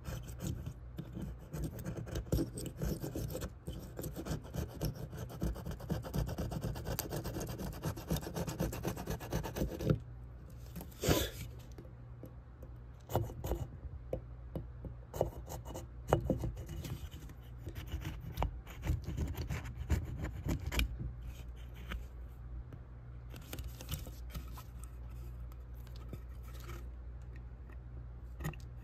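Brim and support material being rubbed, scraped and snapped off a black PLA 3D-printed part by hand. Dense, rapid rubbing and scraping for about the first ten seconds, then scattered sharp snaps and clicks as pieces break away, over a steady low hum.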